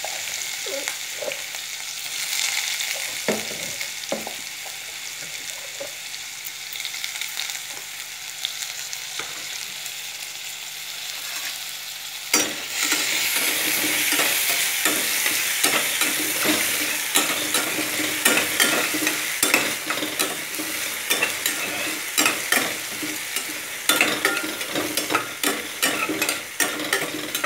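Chopped onion sizzling as it fries in hot oil in a stainless steel pan. About halfway through the sizzle grows louder, and a spatula stirring and scraping against the pan adds many quick clicks and scrapes.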